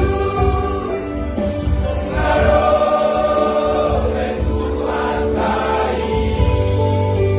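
Christmas gospel song in three-part vocal harmony, sung over an instrumental backing with a steady low beat.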